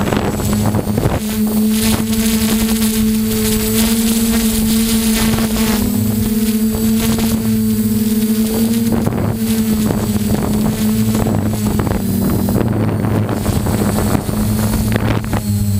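Vintage snowmobile engine running at a steady, slightly wavering pitch, with wind noise on the microphone.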